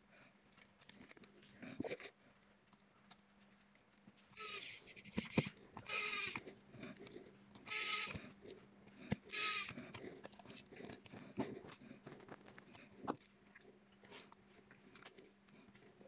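Cordless electric precision screwdriver whirring in four short bursts, each under a second, with a faint wavering whine in each. A few light clicks of small parts being handled follow.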